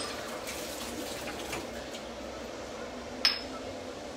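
A single sharp clink of kitchenware about three seconds in, over a steady hiss.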